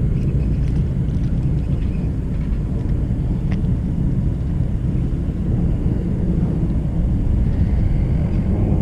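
Steady low engine rumble running without change, with no clear rise or fall; the low, even drone is typical of a boat's engine or generator idling close by.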